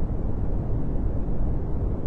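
Brown noise: a steady, even noise that is deep and heavy in the low end and thins out toward the top, with no tones or rhythm in it.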